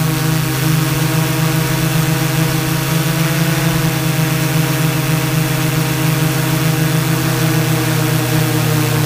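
Quadcopter's four Multistar 2212 920kv brushless motors driving 12x4.2 carbon-fibre props in flight, heard from on board. It is a loud, steady hum of several even tones over a hiss of air.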